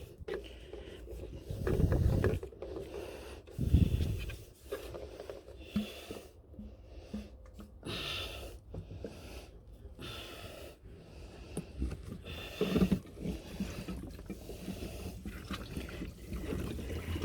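Handling noises of a plastic filler hose and fuel container being worked into a diesel heater tank: irregular rubbing, clicks and knocks, with a few louder thumps about two, four and thirteen seconds in.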